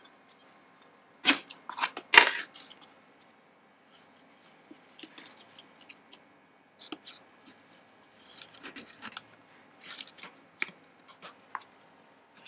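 Plastic measuring cup knocking and scraping against a flour jar as wheat flour is scooped out. There are a few sharp clicks between about one and two seconds in, then softer scrapes and rustles of the flour.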